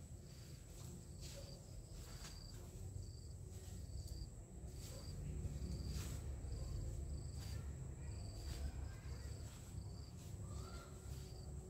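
Insects calling: a short high chirp repeating about every two-thirds of a second over a steady high-pitched drone, with scattered rustles and snaps of leaves and stems as a person moves through the plants.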